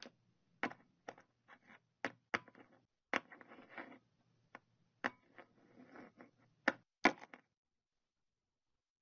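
Irregular clicks and clacks of metal type being picked from a type case and set by hand at a wooden printing press, some strokes louder than others, stopping about seven and a half seconds in.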